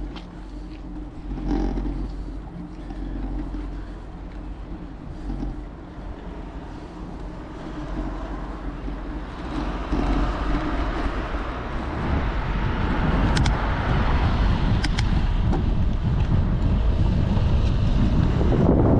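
Wind and road noise on a moving action camera's microphone, with a steady vehicle hum from traffic in the first half; the rushing wind grows louder about halfway through and stays loud.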